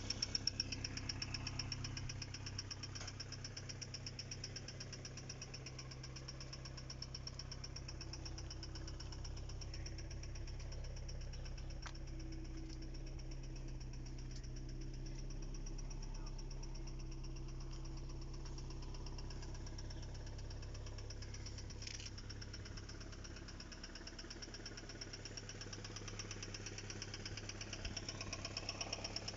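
Car engine idling with a fast, even knock running through its sound.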